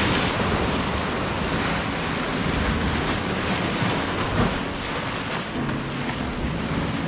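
Sea waves breaking and washing over concrete tetrapod blocks of a breakwater: a steady rush of surf.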